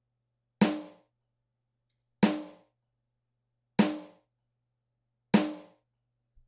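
Four single snare drum hits, evenly spaced about a second and a half apart, each a sharp crack that dies away quickly. They are several layered sampled acoustic snares from Logic's EXS24 sampler, played together.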